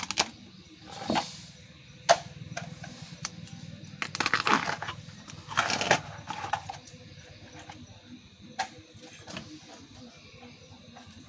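Tough outer sheaths of a fresh bamboo shoot being torn and peeled off by hand: a few short ripping tears with some sharp cracks in between.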